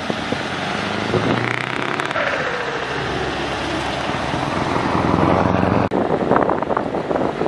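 Scania NGS V8 truck engine running as the truck drives past, a steady low engine note growing louder. About six seconds in it breaks off abruptly and another Scania V8 truck is heard approaching.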